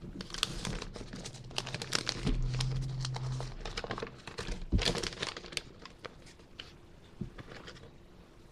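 Paper sandwich wrapper crinkling and crackling as a fast-food chicken sandwich is unwrapped by hand, busiest in the first five seconds and thinning out near the end.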